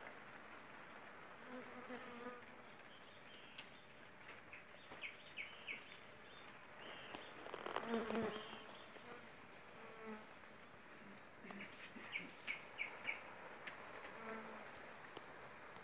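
Bees buzzing as they fly in and out around flowers: short buzzes that come and go as individual bees pass close, the strongest about halfway through. Twice a quick run of three or four short high chirps.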